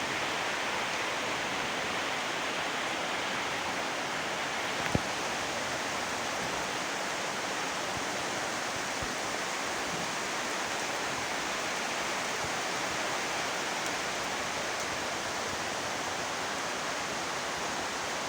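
Heavy rain falling, an even steady hiss, with one sharp click about five seconds in.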